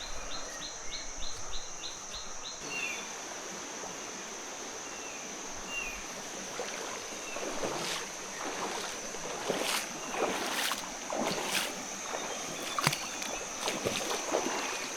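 Water splashing in uneven strokes from about six seconds in, like feet wading through a shallow stream. A steady high-pitched insect drone runs underneath, with a rapid insect chirping in the first couple of seconds.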